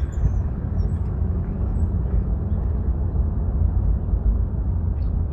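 Steady low rumble of a car travelling along a road: engine and tyre noise. A few faint high chirps sit above it.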